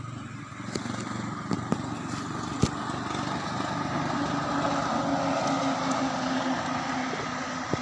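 A motor engine running, a steady pitched hum that grows a little louder toward the middle and then eases off. A few sharp clicks come in the first few seconds, the loudest about two and a half seconds in.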